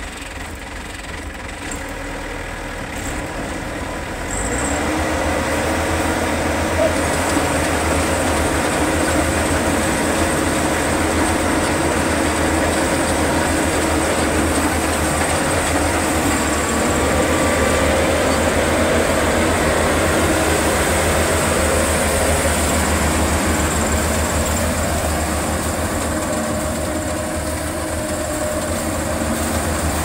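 Maxxi Bimo 102L combine harvester running with a steady mechanical drone, which grows louder about four and a half seconds in.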